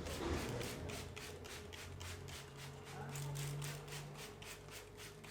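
Hands rubbing rapidly back and forth over a person's hair and scalp in a head massage, a steady rhythm of about five rustling strokes a second.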